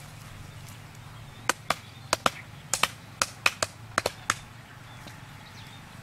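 Sharp wooden knocks of a piece of wood pounding a stake into the ground: about a dozen strikes, some in quick pairs, starting about a second and a half in and stopping a little after four seconds.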